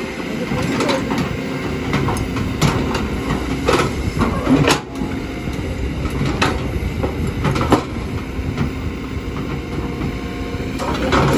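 Kobelco hydraulic excavator working: diesel engine running steadily under load, with several sharp metallic clanks at irregular moments.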